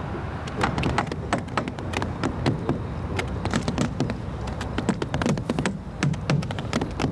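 Hammers tapping quickly and irregularly on a hinoki cypress bark roof, several sharp taps a second.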